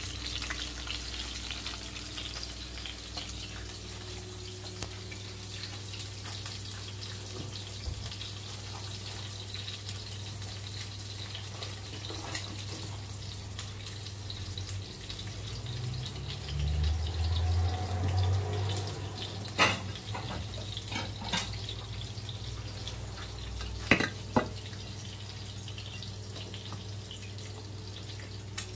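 Eggs frying in oil in a nonstick pan, a steady sizzle. A low rumble comes about halfway through, followed by a few sharp clicks.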